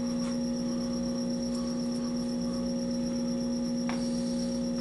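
Taig lathe's motor and spindle running with a steady hum while a 7/16-inch twist drill, fed from the tailstock, drills into the spinning workpiece; the bit is cutting on only one flute. A brief tick about four seconds in.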